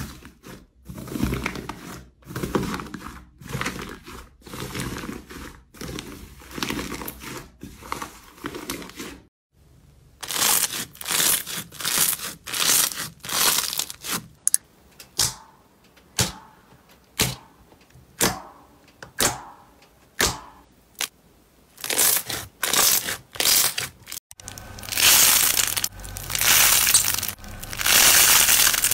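Hands pressing, squeezing and pulling apart thick slime, with crackly, crinkly tearing sounds. A green slime dome is pushed in and torn first, then a red foam slime crackles in short bursts, one or two a second. Near the end a purple foam slime is stretched apart with longer, louder crackling.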